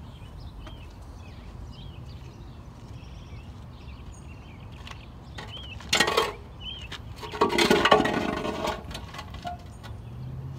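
Scrap metal clanking as it is handled at a truck bed: a short clank about six seconds in, then a longer clattering, scraping stretch about a second later. Faint bird chirps repeat in the background.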